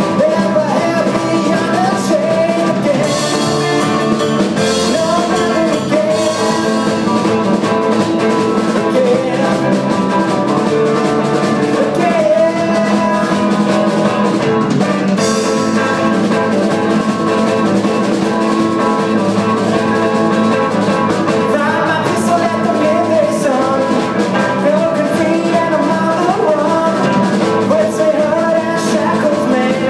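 Live rock band playing: electric guitars, a drum kit and a sung lead vocal. The cymbals come up louder about three seconds in and again around fifteen seconds.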